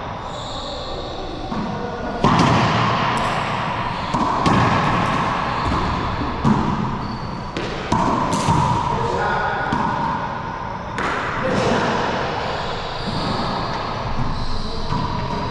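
Racquetball rally: the hollow rubber ball cracking off racquet strings and the court walls and floor, a string of sharp hits a second or two apart, each ringing with the echo of the enclosed court.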